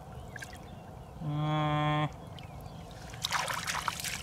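Hands splashing in shallow muddy water as a fish is grabbed and lifted out, a burst of splashes starting about three seconds in. Earlier, about a second in, a steady held tone sounds for just under a second.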